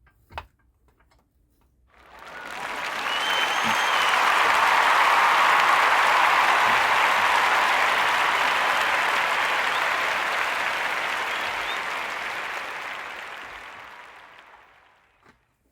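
Crowd applause, fading in over a couple of seconds, holding steady, then slowly fading away near the end.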